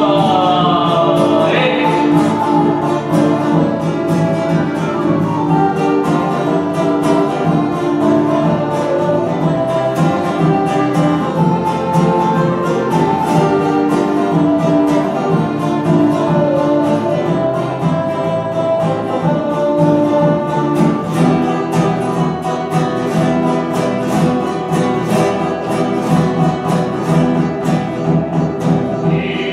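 Acoustic guitar strummed in a steady rhythm, mostly without voice. A man sings over it in the first couple of seconds and comes back in at the very end.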